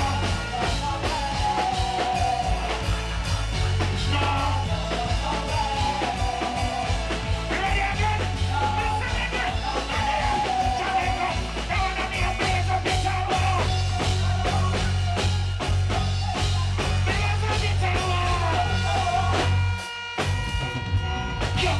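Live reggae band music with a heavy, pulsing bass line and a held, wavering melody with singing over it. The bass drops out for a moment near the end, then comes back in.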